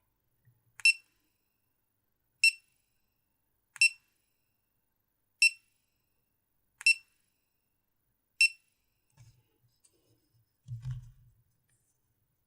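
GoPro Hero 4 Silver action camera beeping: six short, high electronic beeps evenly spaced about a second and a half apart. A soft low thump follows near the end.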